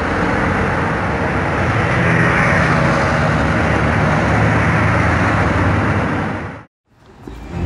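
A motor vehicle running with steady road noise that cuts off abruptly about a second before the end.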